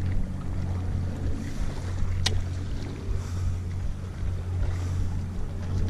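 Steady low rumble of wind on the microphone over the sea, with one sharp click about two seconds in.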